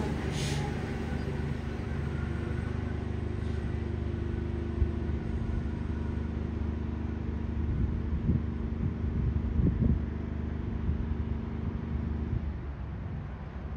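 Train running at the station: a steady low hum with a few knocks, the hum dying away near the end.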